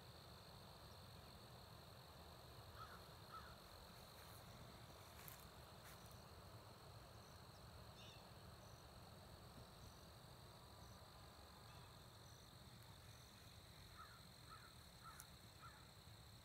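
Near silence: faint outdoor ambience with a steady high insect drone and a few distant bird calls, a pair about three seconds in and a short run of them near the end.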